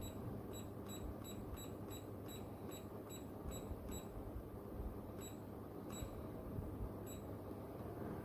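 Pro Breeze tower fan running with a steady rush of air, while its control panel gives short high-pitched beeps. The beeps come quickly, about three a second, for the first four seconds, then a few more at wider spacing, as when buttons are pressed repeatedly to step through settings.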